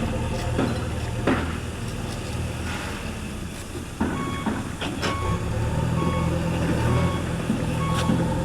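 A vehicle's reversing alarm beeping in short, evenly spaced beeps, starting about halfway through, over the steady low running of its engine. A few scattered knocks come through as well.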